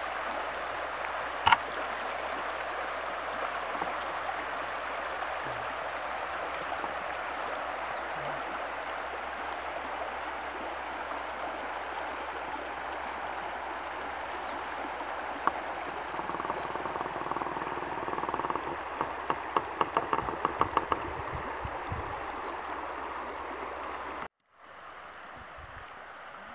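Shallow mountain stream rippling steadily over gravel and stones. A single sharp click about a second and a half in and a quick run of about ten ticks a little before the end stand out above the water. Near the end it cuts out for a moment and goes on quieter.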